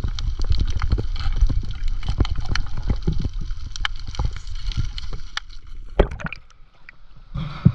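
Water sloshing and splashing with many small clicks and a low wind rumble on the microphone, and a sharp knock about six seconds in.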